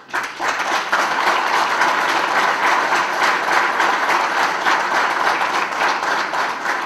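Audience applauding: many people clapping at once, starting abruptly, holding steady and beginning to die down near the end.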